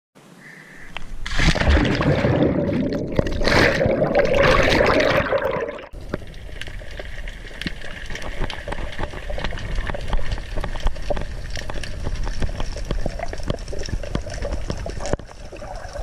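Splashing as someone goes into the sea from the side of a yacht, loud for about five seconds. It cuts off suddenly into the underwater sound heard through a submerged camera: a dense, steady crackle of tiny clicks.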